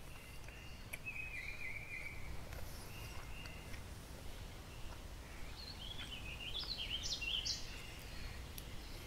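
Songbirds singing over a low, steady outdoor background rumble: a short trill about a second in, then a run of varied rising and falling notes around six to seven seconds in.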